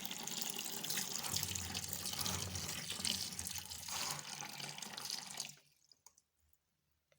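Water running from a kitchen tap as raw potatoes are rinsed under it, then shut off about five and a half seconds in.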